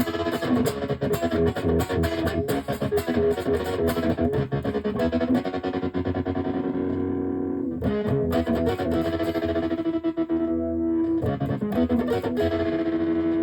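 Electric guitar played through a homemade overdrive pedal built from a broken cassette player, giving a distorted tone. Busy picked notes, a chord held for a moment about six seconds in, more playing, then a final chord left ringing near the end.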